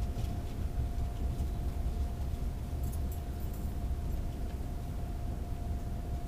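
Steady low rumble inside a passenger car of a RENFE AVE Series 103 (Siemens Velaro) high-speed electric train running along the line, with a faint steady high hum over it and a few light ticks about halfway through.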